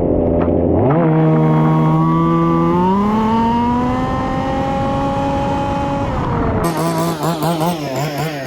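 Small petrol engine of a 1/5-scale RC Formula 1 car at speed. The pitch jumps up about a second in and is held at high revs, still slowly climbing. Near the end the engine note wavers rapidly up and down as the throttle is worked.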